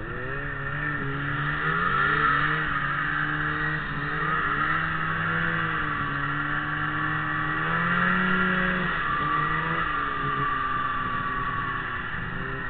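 Ski-Doo Summit 600 SDI snowmobile's two-stroke twin engine pulling away from a stop, its pitch climbing at the start, then running under throttle along the trail, rising again midway and easing off. A steady high rushing noise runs under it.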